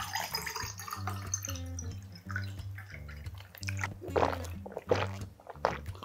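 Water poured from a plastic bottle into a tall glass, the pitch rising as it fills over the first second or so. This is followed by several loud gulps as it is drunk, about four seconds in, over background music.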